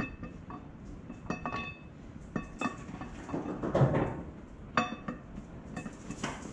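Sharp metallic clinks, each ringing briefly, as the camshaft and its gear knock against the block of a 24-valve 5.9 Cummins while the cam is worked out by hand, with a stretch of scraping handling noise about halfway through.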